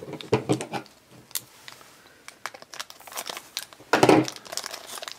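Thin clear plastic blind bag crinkling and crackling as it is handled and torn open by hand, with a louder burst of crackling about four seconds in.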